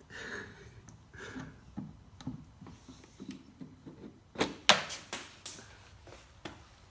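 Scattered light clicks and knocks of small tools and parts being handled while a Jeep tail light is taken apart, with a quick run of sharper clicks about four and a half to five and a half seconds in.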